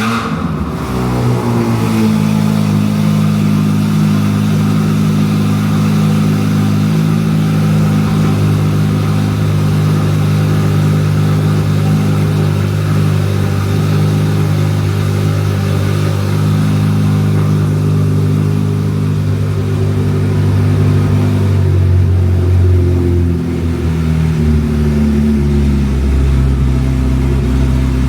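C8 Corvette Z06's 5.5-litre flat-plane-crank V8 with titanium exhaust cold-starting: it catches with a rising flare right at the start, then holds a loud, steady fast idle. Late on, the idle steps down lower as it begins to settle.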